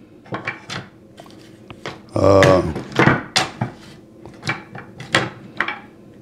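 Metal clamp parts and wooden boards knocking and clicking as they are handled and set down on a bench, about a dozen sharp knocks in all. About two seconds in there is a louder, short pitched sound lasting under half a second.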